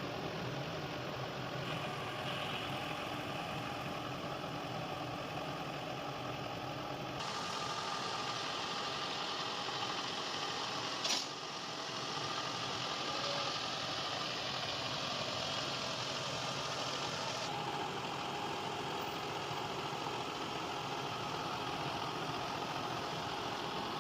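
Toyota Camry engine idling steadily, with one sharp click about eleven seconds in.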